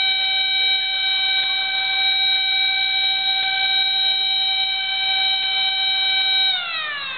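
A loud, steady siren-like alarm tone held at one pitch, which slides down in pitch near the end as it winds down.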